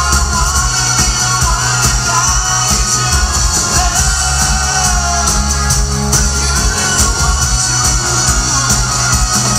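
Live rock band playing loud through a concert PA: a male lead singer over drums and electric guitar, with a steady beat.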